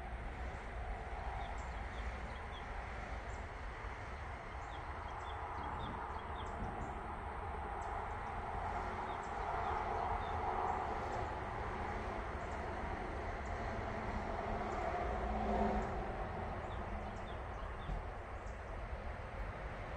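Outdoor background: a steady low noise that swells about halfway through and again briefly a few seconds later, with faint short bird chirps over it.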